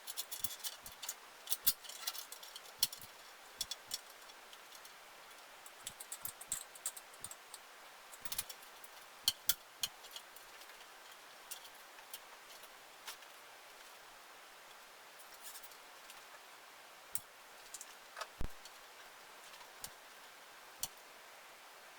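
Scattered small metallic clicks and clinks of tools and parts being handled, irregular and busiest in the first half, with quiet gaps between.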